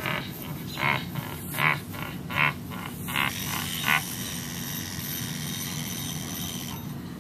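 A person making short, rhythmic mock-labour grunts, about six in the first four seconds. A steady high-pitched whine follows and cuts off suddenly near the end.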